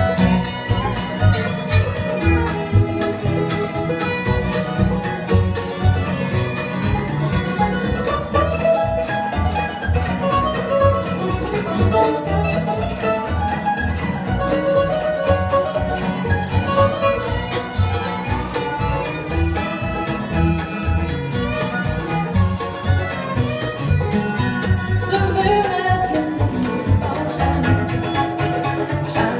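Live bluegrass band playing an instrumental break: fiddles leading over mandolin, acoustic guitar and upright bass, with a steady beat.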